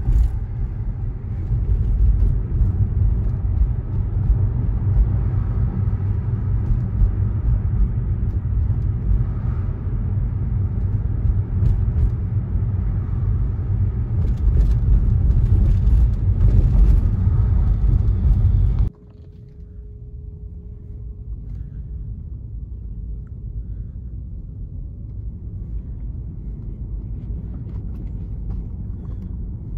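Car driving through city streets: a heavy low rumble of road and engine noise, which drops suddenly to a quieter low rumble about two-thirds of the way through.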